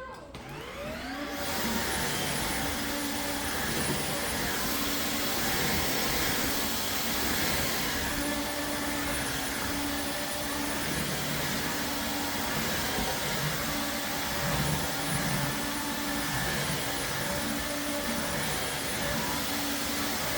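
Airthereal Vactide wet-dry floor vacuum running in Intelligent mode: the motor winds up over the first second or two, then runs steadily, its tone shifting a little.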